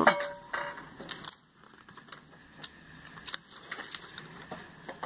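Glossy catalogue pages being handled and turned by hand: a few scattered light paper rustles and soft clicks.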